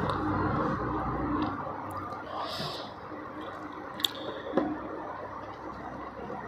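Close-up eating sounds: wet chewing and mouth smacks as a mouthful of rice and smashed fried chicken is eaten by hand, with a couple of sharp clicks a little past halfway.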